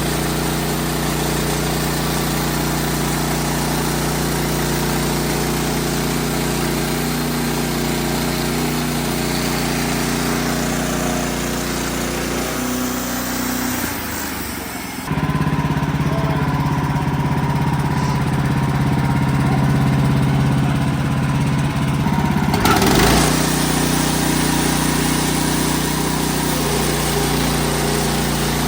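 Wood-Mizer LX55 sawmill's engine running steadily. The sound changes abruptly about halfway through, turning to a stronger low hum with less hiss, and switches back a few seconds later.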